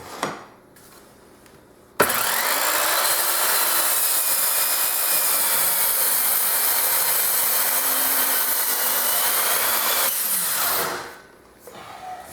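Handheld circular saw mounted on a shop-built panel saw, switched on with a sudden start about two seconds in and running steadily for about eight seconds as it is pushed through a sheet of sheet goods, then switched off and winding down.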